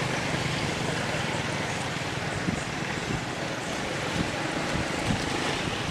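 Steady outdoor hiss with wind on the microphone, and a few faint low bumps in the second half.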